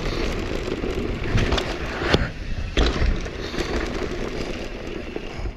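Mountain bike rolling fast down a loose dirt and rock trail, heard from a helmet camera: steady tyre and rolling noise, with several sharp knocks and rattles of the bike over bumps.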